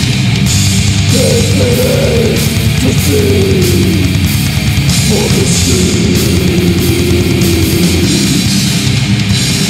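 Old-school death metal recording: heavily distorted guitars over dense drums with steady cymbal hits, loud and unbroken. From about a second in, a higher line that bends in pitch runs above the riff.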